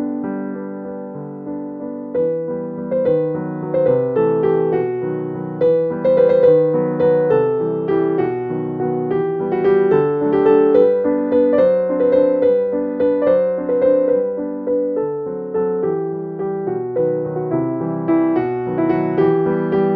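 Background piano music: a gentle keyboard melody over held chords.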